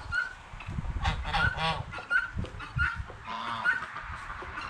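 Domestic geese honking: a string of short, repeated honks, some overlapping.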